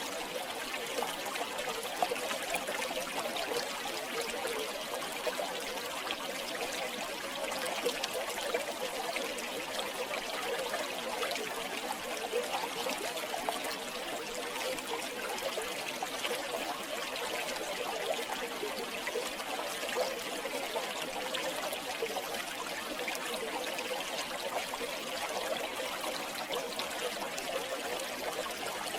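River water flowing and trickling steadily over stones, a continuous bubbling splash with no breaks.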